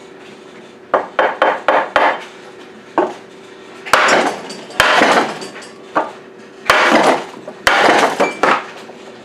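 Blows struck with a wooden block against the seized, salt-corroded cylinder of a Rotax 587 two-stroke jet ski engine to knock it off the crankcase: a quick run of about five sharp knocks, then heavier single blows about a second apart.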